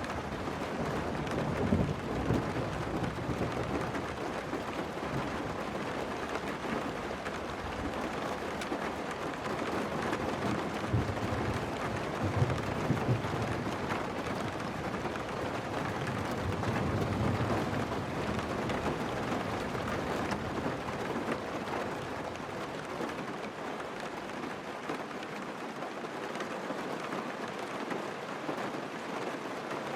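Steady rain with several low rumbles of thunder, the strongest about two seconds in and again around eleven to thirteen seconds.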